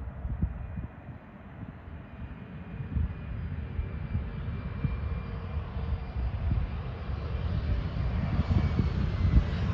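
A jet airliner's engines heard at a distance: a low rumble with a faint steady whine above it, slowly growing louder as the plane approaches.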